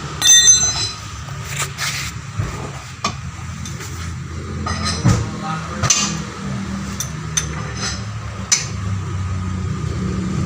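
Metal clinks and taps, a dozen or so short sharp strikes, some of them ringing briefly, over a steady low hum.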